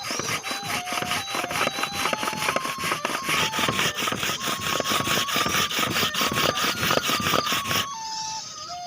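Rapid rhythmic scraping or rubbing strokes, several a second, over background music with a simple stepping melody. The scraping stops about a second before the end, leaving only the music.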